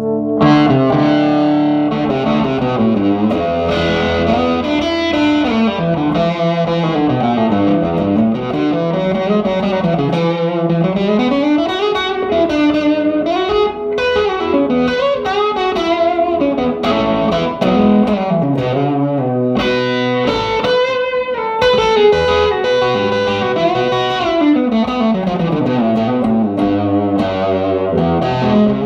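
Electric guitar played through a 1959 Airline 8500-S tube amplifier, heard straight from the amp with no added effects: flowing single-note lines that climb and fall in runs.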